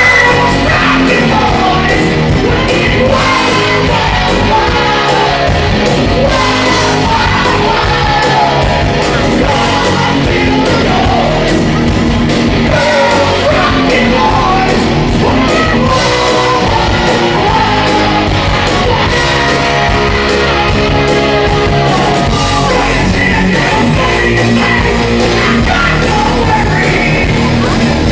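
A live rock band playing loudly: a lead vocalist singing over electric guitars and drums, continuous throughout.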